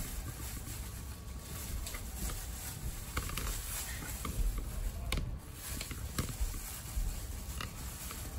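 Thin plastic bag crinkling and rustling as it is pulled over a head and twisted shut by hand, in many small irregular crackles.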